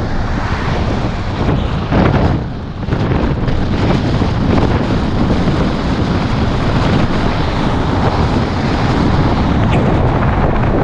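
Steady wind and road noise of a moving car heard on the camera's microphone. There is a brief louder gust about two seconds in and a short lull just after.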